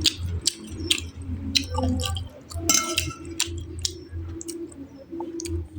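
Close-miked chewing of food, with irregular wet mouth clicks and smacks.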